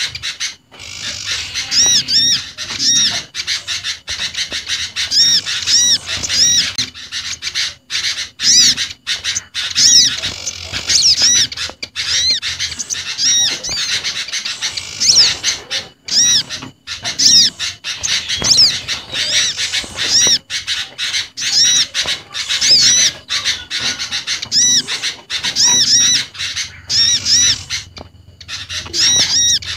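Bird-lure recording mixing the calls of small garden birds, among them olive-backed sunbird, prinia and sooty-headed bulbul: dense, high-pitched chirps repeated rapidly in quick bursts with brief breaks.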